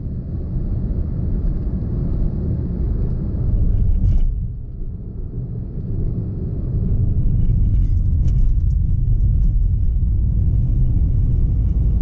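Steady low rumble of a moving road vehicle, with a brief knock about four seconds in.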